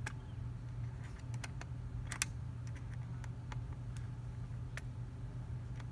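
Scattered small clicks and taps from a bolt being turned by hand through an Asahi plastic windshield into a rubber well nut, the sharpest about two seconds in, over a steady low hum.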